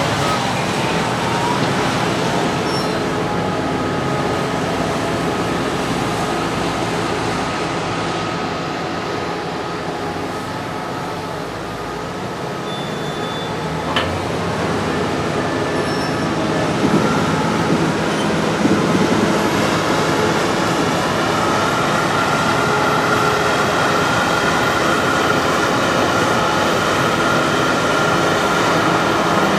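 Heavy diesel farm machinery running steadily, engine drone with a whine over it that grows stronger in the second half.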